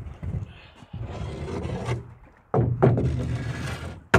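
Knocks and scrapes of a person moving about in a canoe and stepping out onto the shore, with wind buffeting the microphone in two long gusts and a sharp knock at the very end.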